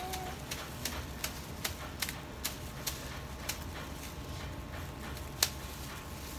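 Light taps on a hard surface, about two or three a second for a few seconds, then a pause and one louder tap near the end.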